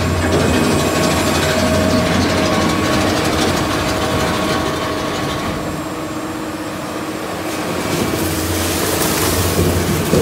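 Model 760 plastic film shredder running: a steady mechanical drone with a low hum and a few steady tones over it. A brighter hiss comes in near the end.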